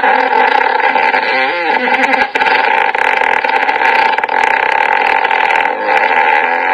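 Buzzing fart sound effect, held at a steady pitch, with a brief wobble about one and a half seconds in and a short break a little after two seconds.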